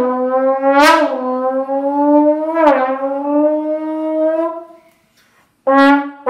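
Trombone holding one long steady note with a few sharp accents, swelling slightly in pitch at each, then fading out about four and a half seconds in. After a short gap, a second trombone starts a new note just before the end.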